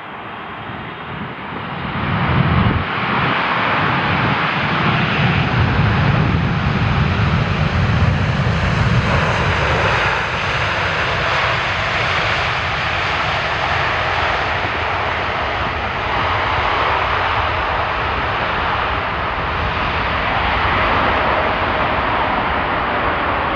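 Jet airliner passing close on its landing approach: the engine noise builds over the first couple of seconds and then stays loud, the deep rumble easing after about ten seconds.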